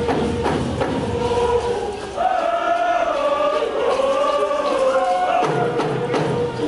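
A group of singers chanting a warrior song over steady drumbeats. About two seconds in, a higher, wavering sung melody rises over the chant while the beats fade back.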